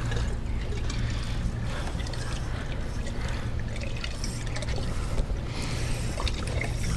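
Water trickling and splashing around a small boat, over a steady low hum.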